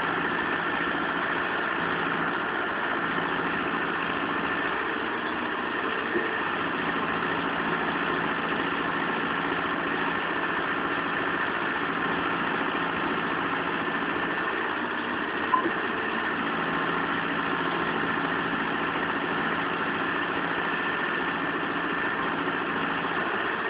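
Mahindra Arjun 605 tractor's diesel engine running steadily at a constant speed. Two short clicks are heard partway through.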